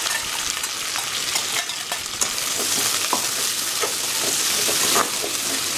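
Sliced onions, green chillies and curry leaves sizzling in hot oil in a metal kadai, stirred with a spatula that scrapes and taps against the pan.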